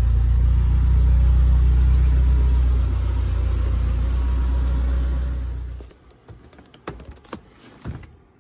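BMW E30 M3's S14 four-cylinder engine running steadily at idle. It cuts off about six seconds in, followed by a few light clicks or knocks.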